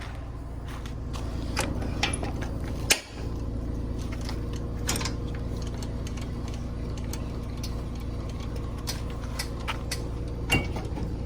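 A steady low engine-like hum with scattered light clicks and knocks, and a sharper knock about three seconds in and another near the end.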